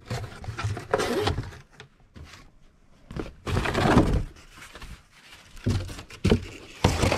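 Cardboard shipping boxes being handled while a bubble-wrapped box is tried inside them for fit: bursts of scraping and rustling with a few dull thunks, broken by short quiet gaps.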